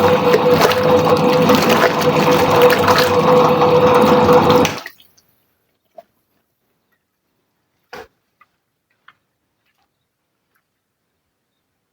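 Soviet washing machine running with water churning and a steady hum, which cuts off suddenly about five seconds in. A few faint clicks and a light knock follow.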